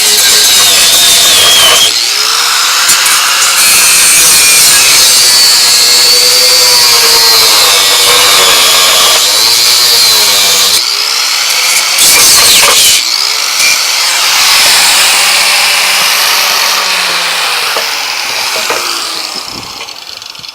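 Kawasaki 4.5-inch angle grinder grinding off bolts: a loud high whine that wavers in pitch as the disc bites into the metal. It dies away near the end.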